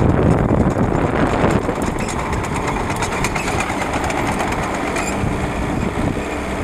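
Tractor engine running steadily under load while ploughing, with a continuous rattle.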